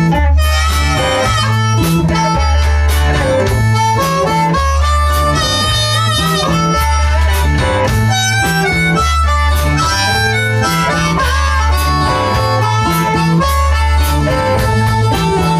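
Blues-rock music: a harmonica plays a wavering melody over a low bass and guitar riff that repeats about once a second.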